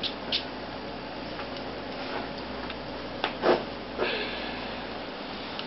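Puppies' paws padding and claws ticking on a hardwood floor: a few scattered light taps and clicks, the loudest about three and a half seconds in.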